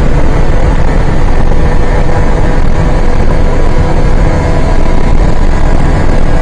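Car travelling at highway speed: loud, steady road and wind rumble, with a faint steady engine hum.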